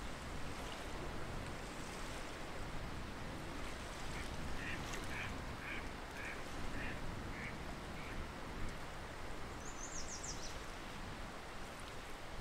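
Waterfowl calling: a run of about eight short, repeated calls in the middle, over a steady background hiss. A small bird gives a quick high trill near the end.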